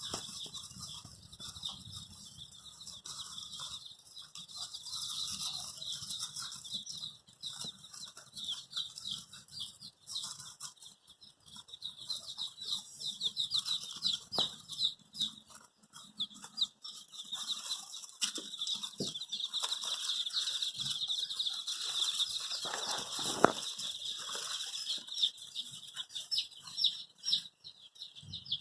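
A brood of baby chickens peeping: many high, short chirps overlapping without a break, with a few sharp knocks among them.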